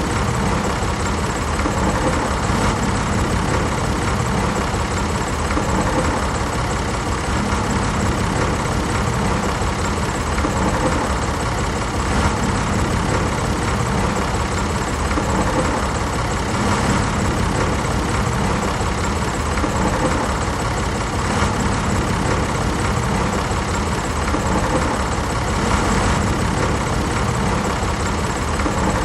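A vehicle engine running steadily at idle, with an even rumble and no change in speed.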